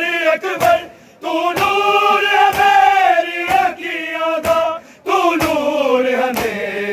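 A group of men chanting a Punjabi noha (Muharram lament) together in long held lines, with a short break about a second in. Under the chant come sharp slaps about once a second: hands beating on bare chests in matam.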